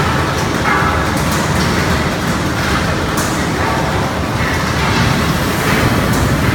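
Goliath 250 single-chamber pig scalding and dehairing machine with a scraper roller, running with a loud, steady mechanical rumble. A few sharp knocks come through, one near the middle and one near the end.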